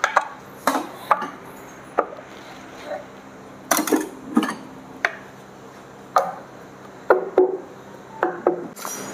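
Irregular clinks, knocks and scrapes of metal engine parts and hand tools being handled and set down on a bench, about a dozen short sounds spread unevenly, with two louder clusters near the middle and near the end.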